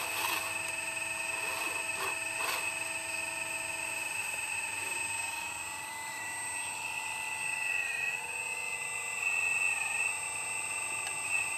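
Radio-controlled model excavator's motors whining steadily as it swings its boom and digs; the pitch wavers about halfway through as the movements change. A couple of light clicks around two seconds in.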